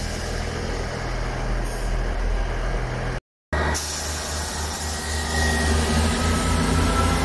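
South Western Railway diesel multiple unit's engines running with a steady low hum as the train moves past the platform. The sound cuts out for a moment a little over three seconds in, and in the second half a faint whine rises slowly in pitch.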